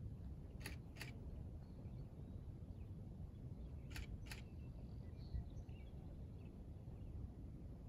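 Quiet outdoor lake ambience: a low rumble of background noise with faint, scattered high bird chirps. Two pairs of short sharp clicks come about a second in and again about four seconds in.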